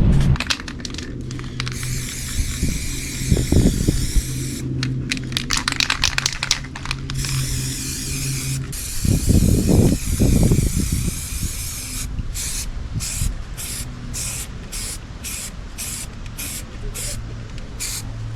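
Hissing in stretches, like a spray being applied, then regular rubbing strokes about two a second in the second half, like hand sanding, over a steady low hum.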